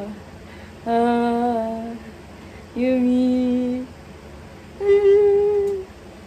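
A woman's voice humming or singing three long held notes, each about a second, with short pauses between, the pitch stepping up from note to note.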